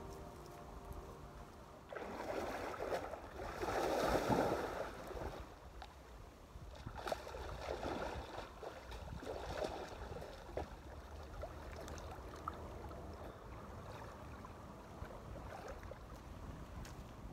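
A person jumping into a lake: a splash and rush of water about two to four seconds in, then a few smaller splashes from swimming, then a low steady wash of water.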